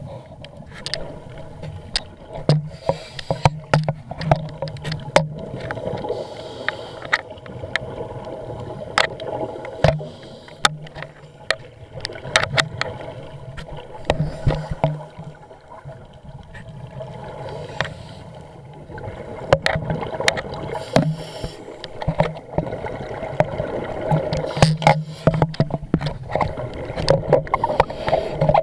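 Scuba diver breathing through a regulator underwater, heard through a waterproof camera housing: a low bubbling rumble of exhaled air every few seconds, with many sharp clicks and knocks in between.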